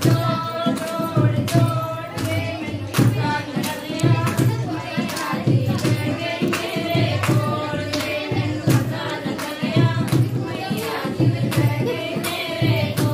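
A group of women singing a Hindu devotional bhajan together at a kirtan, clapping their hands to a steady beat.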